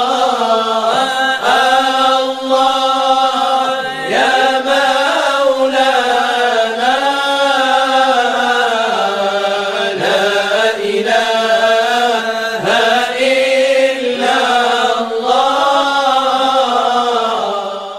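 A solo voice chanting melodically, with long held notes that bend and turn in ornaments; it fades away at the very end.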